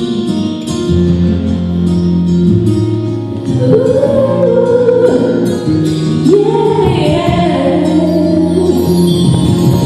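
A woman singing a slow song into a microphone over instrumental backing of sustained chords with a light ticking beat. Her voice comes in about three and a half seconds in, holding long notes that waver in pitch.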